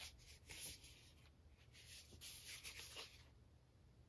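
Faint rustling of a paper 7-inch record sleeve being handled, in two short stretches.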